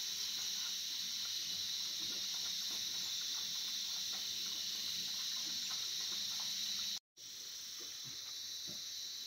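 Steady high insect chirring, with faint quick wet clicks of a dog eating from a bowl. The sound drops out for a moment about seven seconds in, and the chirring then resumes a little quieter.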